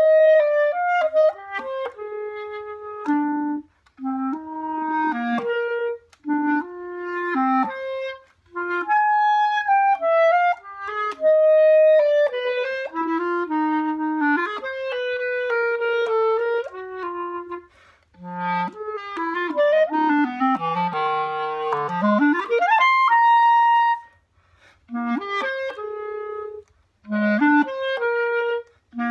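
Unaccompanied clarinet playing a solo classical passage in phrases broken by short breaths. About three-quarters of the way through, a fast run sweeps upward to a briefly held high note.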